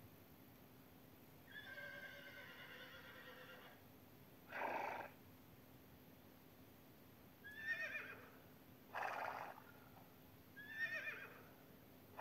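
A horse whinnying: a longer, quieter whinny near the start, then two short ones. Short noisy blasts without a pitch come in between.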